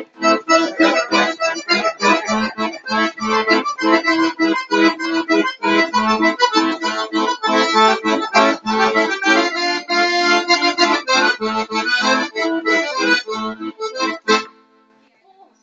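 Piano accordion playing a tune with a steady rhythmic pulse of chords, stopping abruptly about a second before the end.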